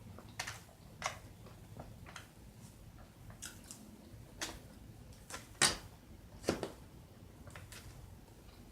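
Close-up eating sounds: a person chewing a salad of lettuce and pickles, with irregular crisp crunches and wet mouth clicks, the loudest a little past halfway.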